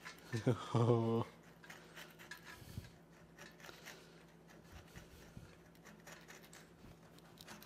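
A steel pick scraping and flaking dried crust off the cast-iron frame of a Beaudry power hammer: a dense run of faint scratches and small ticks. A short voiced sound from a person comes about half a second in.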